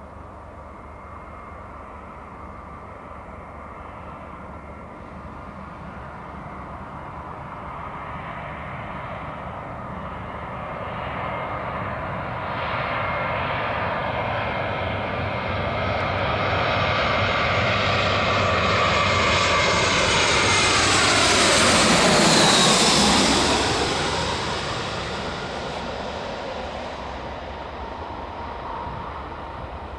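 Airbus A320 jet airliner on final approach, its engines growing steadily louder as it nears and passes low overhead about 22 seconds in. The engine whine drops sharply in pitch as it goes by, then the sound fades as it heads down towards the runway.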